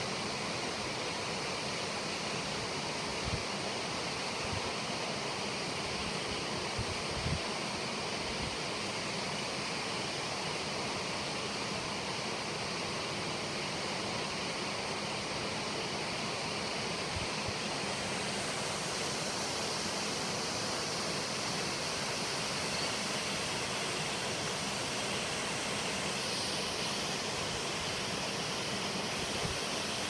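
Dangar Falls, a waterfall plunging into its pool, giving a steady, even rushing roar, with a few soft low thumps.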